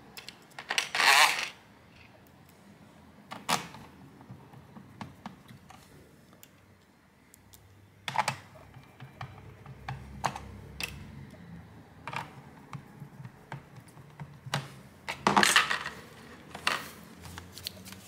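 Handling noises from a laptop and tools on a cloth-covered bench: scattered short clicks and taps, with two louder brief scraping bursts, one about a second in and one near the end.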